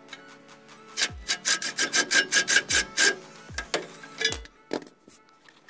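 Cordless impact wrench hammering in a burst of about two seconds a little over a second in, with a few shorter blips after, driving the wheel-spacer nuts onto the hub studs. Electronic dance music with a thumping kick drum plays underneath.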